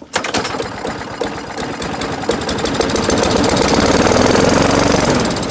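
4.5 hp Craftsman lawnmower's single-cylinder engine catching and running at a rapid, steady firing beat, growing louder over the last few seconds. It is running only on fuel poured straight into the carburetor: the spark plug works, but the carburetor is not feeding gas.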